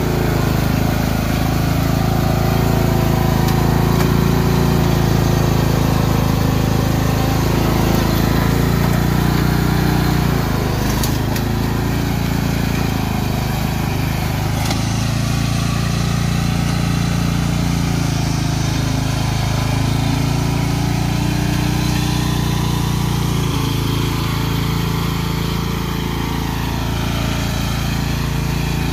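Engine of a Craftsman riding lawn tractor running steadily as it is driven over rough forest ground, its note dipping briefly a few times as the load changes.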